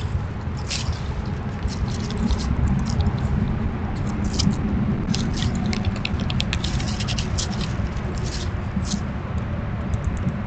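Squirrel right at the microphone, scratching and nibbling in quick, light patters over a steady low rumble.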